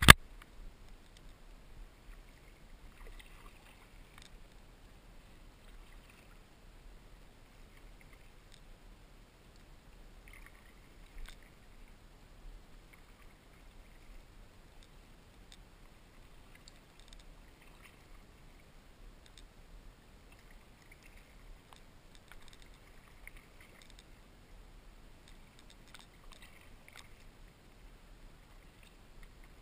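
Kayak paddle strokes: the blades dipping into and pulling through calm river water, with splashes and drips coming in quiet clusters every few seconds.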